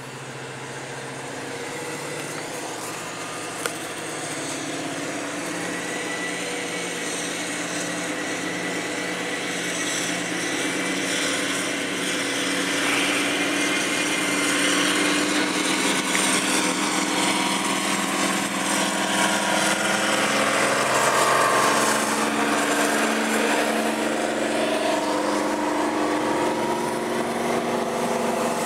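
British Rail Class 55 Deltic diesel locomotive, with its twin Napier Deltic two-stroke opposed-piston engines, running under power as it approaches and passes. It grows steadily louder, and its engine note drops as it goes by. Near the end the coaches roll past.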